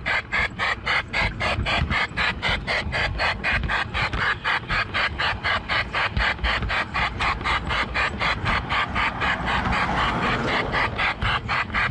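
LGB G-scale garden railway train running along its track, heard from on board as a steady, rapid clicking of about five clicks a second over a low rumble.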